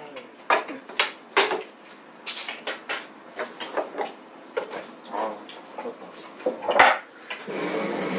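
Eating utensils clinking and scraping against plates and bowls as several people eat: a scatter of short, irregular clinks, with one louder clink near the end.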